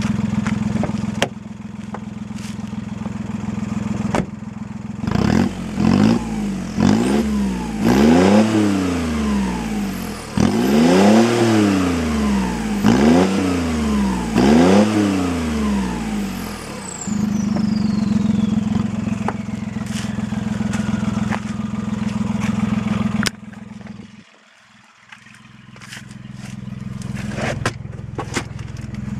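VW Lupo 3L's 1.2 TDI three-cylinder diesel idling through a free-flow side-exit exhaust with no mufflers, then revved in a series of short blips, each rising and falling, before settling back to idle. A faint whistle falls slowly after the revs. Near the end the engine sound drops away and there are clicks and knocks.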